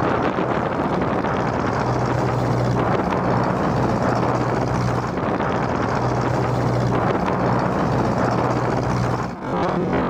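The inboard Mitsubishi 4D31 four-cylinder diesel of a small wooden cargo boat running steadily under way, a constant low hum under the rush of wind and bow spray.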